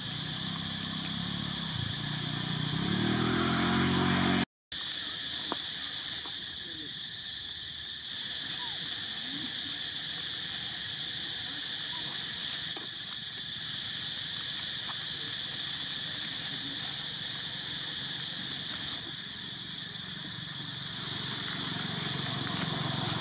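Forest insects droning steadily at a high pitch. Over the first few seconds a low engine-like hum grows louder, then all sound cuts out for an instant. A fainter hum returns near the end, with a few faint short chirps in between.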